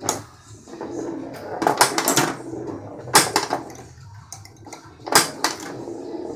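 Bally Fireball Home pinball machine in play: sharp clacks of the flippers firing and the steel ball knocking against the playfield rubbers and posts, in bursts about every one and a half to two seconds.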